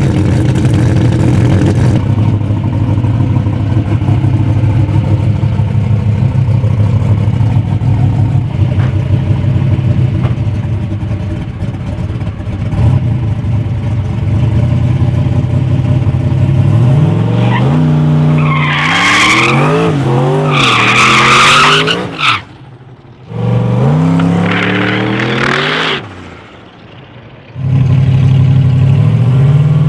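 Turbocharged big-block V8 of a drag-racing Corvette C3 idling with a steady low note, then revving up and down repeatedly with tyre squeal over it during a burnout. The sound twice breaks off for a moment, then the engine settles back to idle near the end.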